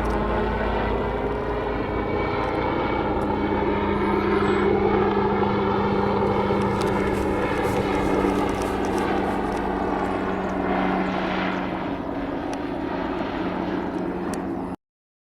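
Agusta Caweel CW-86 aircraft engine and propeller droning steadily, with a low hum and overtones that slowly waver. It cuts off suddenly just before the end.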